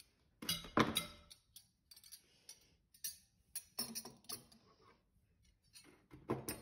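Plates and cutlery being set down on a table: a run of irregular clinks and knocks, the loudest about a second in, with more around three to four seconds and again near the end.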